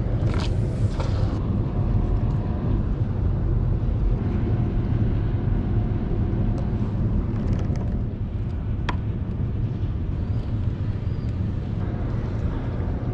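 Steady low rumble of outdoor background noise, with a brief hiss about half a second in and a single sharp click near nine seconds.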